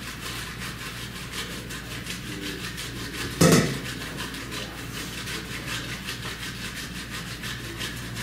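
Brussels sprouts being shredded on a grater: a quick run of repeated scraping strokes, several a second. One loud thump comes about three and a half seconds in.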